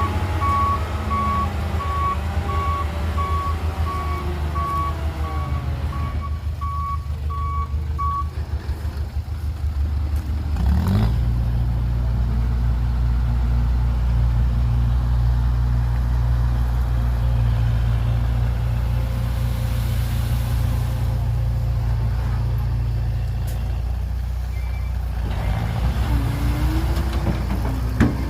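Dump truck reversing, its backup alarm beeping in a steady repeating tone over the diesel engine's running. The beeping stops about eight seconds in, and a few seconds later the engine gets louder and runs on steadily.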